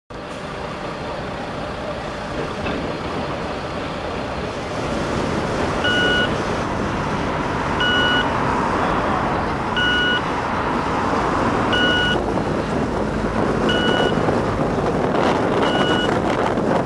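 Street traffic noise from buses and cars. About six seconds in, a short high electronic beep starts repeating about every two seconds.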